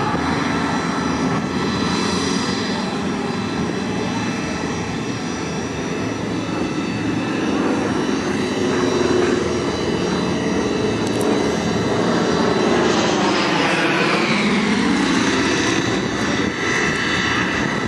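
Engines of two small aerobatic planes droning overhead as they fly manoeuvres together. About two-thirds of the way through, the engine pitch sweeps down and back up as the planes turn.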